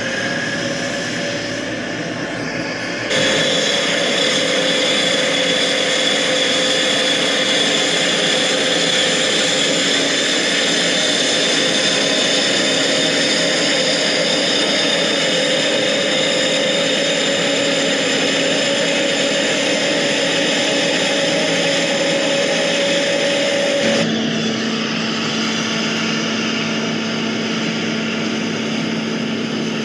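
Steady whine of a quadcopter drone's propellers and motors hovering, with the sound changing abruptly twice, about three seconds in and near the end.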